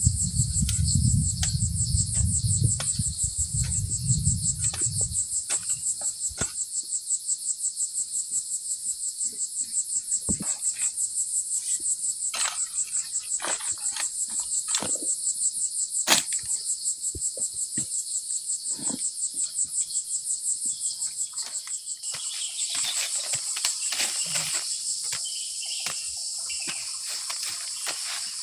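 Forest insects chirring in a loud, high chorus that pulses several times a second, with scattered light knocks and clicks. A low rumble underneath stops about five seconds in.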